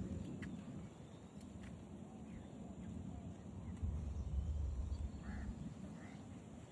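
Outdoor ambience with a few short bird calls late on, over a low rumble that swells about four seconds in.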